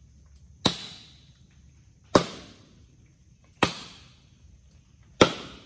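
Four heavy chopping blows of a blade into hard, dead mangrove wood, evenly spaced about a second and a half apart, each with a short ringing decay. The wood is being hacked open to get at the tamilok shipworms boring inside it.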